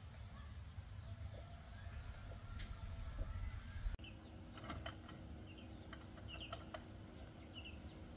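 Outdoor farm ambience: faint, short bird chirps repeat over a steady low rumble, with a few light clicks. The sound changes abruptly about four seconds in.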